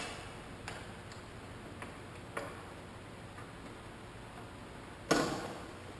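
Workshop handling noises from door hinge hardware and tools: a few light clicks, then one louder knock about five seconds in.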